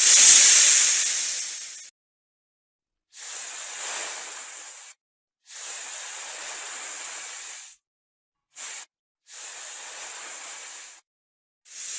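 Snake hissing: a run of separate hisses, each lasting one to two seconds, with one very short hiss about two-thirds of the way through and silent gaps between them. The first hiss is the loudest.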